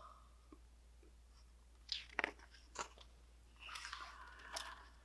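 Faint handling of a hardcover picture book: a few soft clicks, then about a second of quiet paper rustle as a page is moved.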